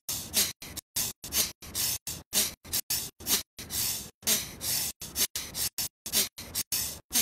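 A person's rapid, forceful breathing, about three sharp puffs of breath a second, in a yoga pranayama breathing exercise.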